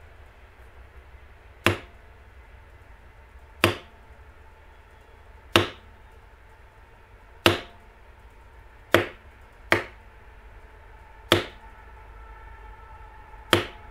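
Mallet striking a small leather beveler to bevel the tooled outline of a leather piece: eight sharp taps, spaced one to two seconds apart.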